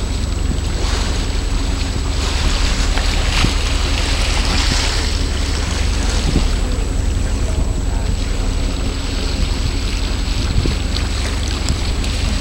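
Water rushing along a moving boat's hull, with wind buffeting the microphone and a steady low rumble under it. The rush swells for a few seconds around the middle.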